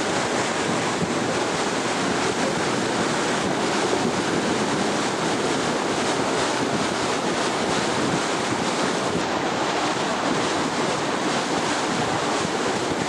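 Steady rush of wind on the microphone mixed with the wash of the sea, heard from aboard a boat.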